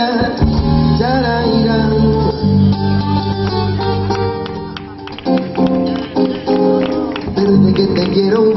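Live flamenco fusion band playing: guitars over a held low bass, with a wavering melody line, and a run of sharp guitar strums about five seconds in.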